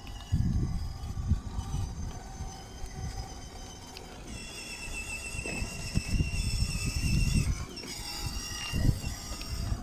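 Children's electric ride-on Mercedes G63 toy car driving over rough concrete, with irregular low rumbling throughout. From about four seconds in, a steady high whine from its electric motors and gearboxes joins the rumbling and shifts in pitch near the end.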